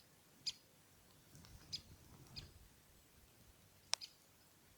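Woodpecker calling: three short, faint, high-pitched squeaky notes spaced about a second apart, then a sharp, louder click near the end.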